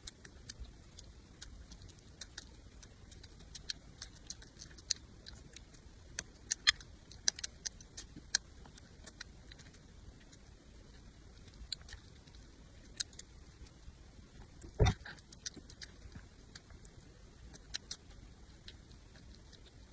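Close-miked mukbang eating sounds: many sharp, irregular mouth clicks and smacks of chewing, with one louder thump about fifteen seconds in.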